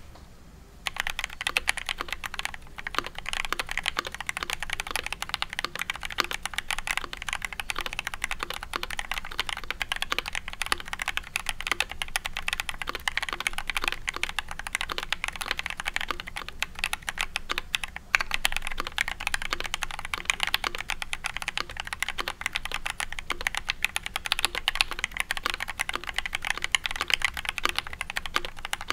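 Fast, continuous typing on a KBD67mkii mechanical keyboard with a polycarbonate case and brass plate, its H1 switches lubed and filmed. The keystrokes start about a second in, with a brief break about two-thirds of the way through.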